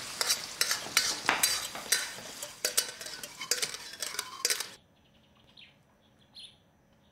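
Kitchen cooking clatter: utensils knocking and clinking against pots, pans and dishes in many quick sharp strikes over a hiss. It cuts off abruptly about two-thirds of the way through, leaving near silence.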